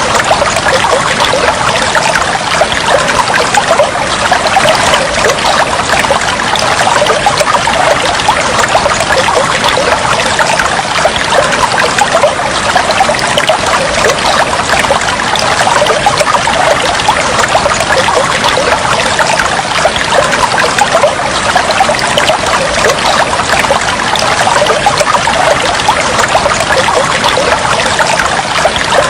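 Flowing water trickling steadily, an even, unbroken splashing with no pauses.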